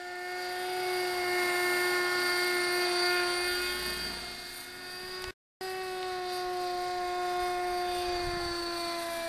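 Electric RC model helicopter in flight: a steady high whine from its motor and rotor, several tones together, growing louder and then fading a little as it moves. The sound breaks off for an instant about five seconds in, then carries on with the pitch sagging slightly.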